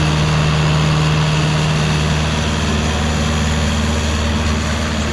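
Diesel engine of a mini excavator running steadily at a constant speed.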